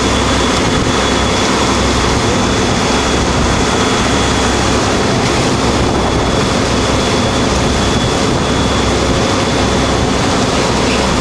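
Boat engine running steadily: a loud, continuous drone with a thin, steady high whine on top.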